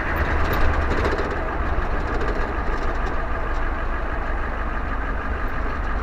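1994 Ford F350's 7.3 litre IDI V8 diesel running while the truck drives, heard from inside the cab as a steady low rumble mixed with road and drivetrain noise. A few light rattles come in the first second or so.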